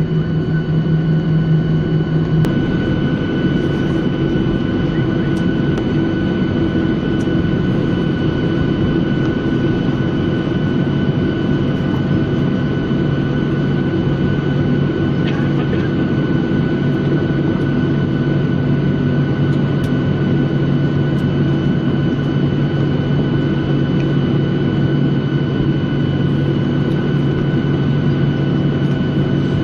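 Boeing 737-800's CFM56 jet engines running at taxi idle, heard inside the cabin as steady engine noise with constant whining tones. A low hum drops slightly in pitch about two seconds in.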